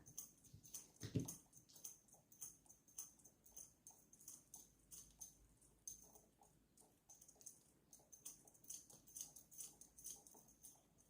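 Cat playing with a suction-mounted wand toy: light, irregular tapping and clicking, with a soft thump about a second in.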